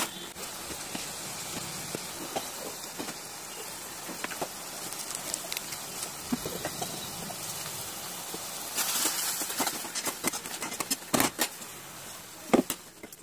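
Spiced onion masala sizzling and bubbling in a pan: a steady hiss with scattered pops, growing louder and more crackly in the second half, with a couple of sharp knocks near the end.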